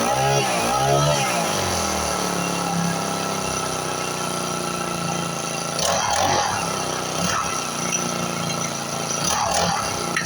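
Four-stroke grass cutter engine running with diesel in its crankcase as a flush. It is revved up and down a few times at the start, then settles to a steady run.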